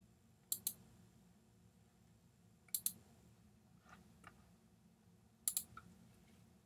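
Computer clicks: three pairs of sharp clicks about two and a half seconds apart, with a couple of fainter ticks between them, over a faint low hum.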